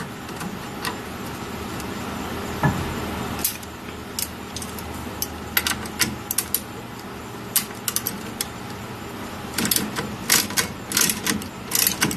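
Hand wrench tightening a brake caliper mounting bolt: scattered sharp metal clicks and clinks, coming in quick bunches of several clicks in the last few seconds.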